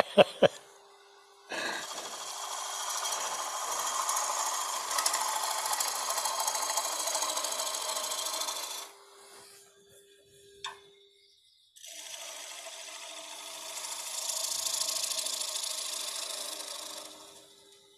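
A gouge cutting the inside of a spinning green cedar bowl on a wood lathe: a steady rasping cut of about seven seconds, a short pause with one click, then a second long pass, taking light clean-up cuts to remove ridges on the inside wall. The lathe hums steadily underneath.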